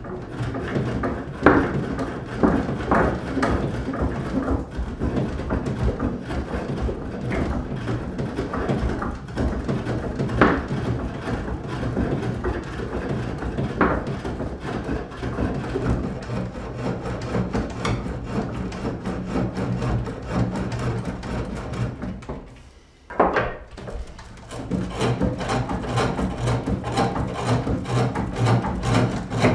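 Spring pole lathe turning: a hand-held gouge cutting shavings from a length of wood that the treadle and pole spin back and forth, with occasional sharp knocks and a short break about three-quarters of the way through.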